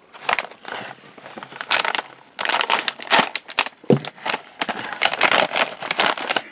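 Plastic snack bag of ramen crackers being gripped and pulled open by hand, crinkling irregularly, busier from about two and a half seconds in, with one sharper crack near the middle.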